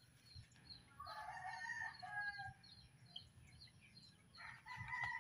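A rooster crowing faintly, twice: one long crow about a second in, and another starting near the end.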